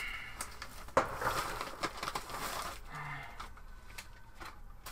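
Packaging rustling as a parcel is unpacked by hand, with a sharp tap about a second in, then quieter handling with a few light ticks.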